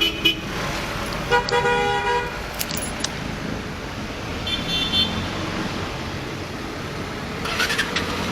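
A vehicle horn sounds for about a second, over steady road traffic noise; a shorter, higher beep follows a few seconds later.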